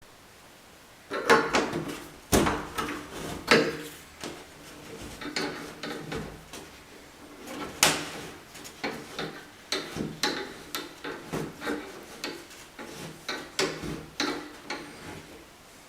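A nut being worked off a shower valve body with a tool: an irregular series of clicks, knocks and short scrapes.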